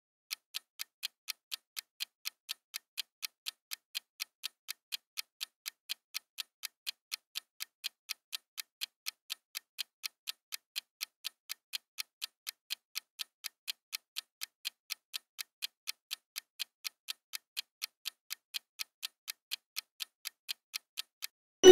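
Countdown-timer sound effect: a clock ticking steadily, light high-pitched ticks at about three a second, marking the time left to answer.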